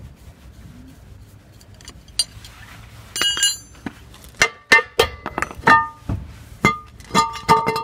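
UAZ brake drum being worked off its hub: a series of sharp metallic clanks from about three seconds in, each leaving a clear ringing tone as the drum knocks against the hub and studs.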